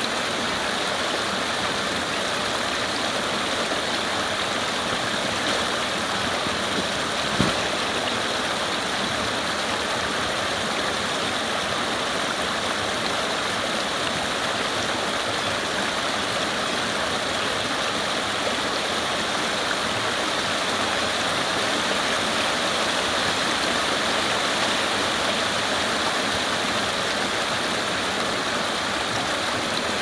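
A small spring-runoff waterfall, its water cascading steadily over rocks into a brook with an even rushing splash. There is one brief knock about seven seconds in.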